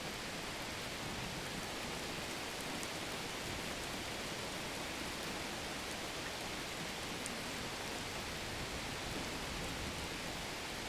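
Steady rain: an even hiss with a few faint high ticks, about three and seven seconds in.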